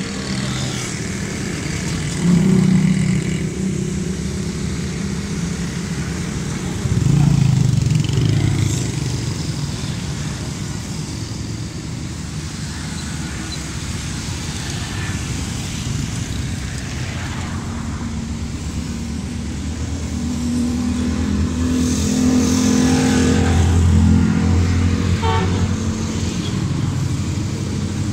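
Steady low engine rumble from road traffic and an approaching diesel locomotive. It swells briefly about two seconds in and again about seven seconds in, then grows louder from about twenty seconds in.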